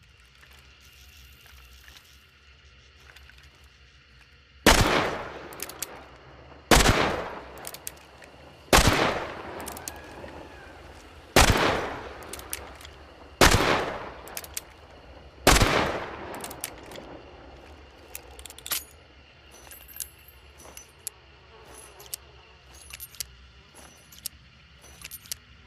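Smith & Wesson Model 3 Schofield revolver firing six shots, spaced about two seconds apart, each with a ringing, echoing tail. Light metallic clicks follow the last shot.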